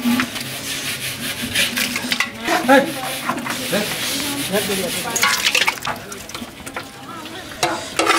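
A china plate scraping against the inside of a large aluminium cooking pot as cooked goat mutton is scooped out of it, with a few sharper scrapes and knocks.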